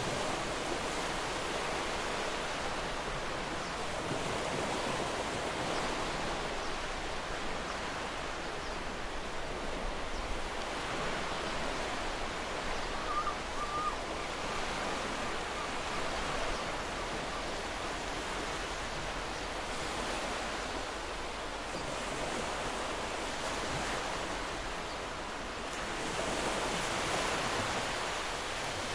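Sea waves washing onto a rocky shore, a steady hiss that swells and eases a few times. A brief faint chirp sounds about halfway through.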